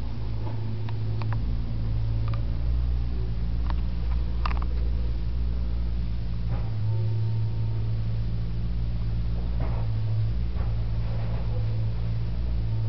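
Steady low electrical hum from a bench power supply charging a Joe cell at about 12.3 V and 1 A, with scattered short clicks.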